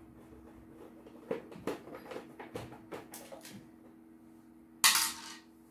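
Hands working on the plastic housing of a CNY portable embroidery machine while taking it apart: a run of small clicks and knocks, then a short, loud rasping clatter near the end, over a steady low hum.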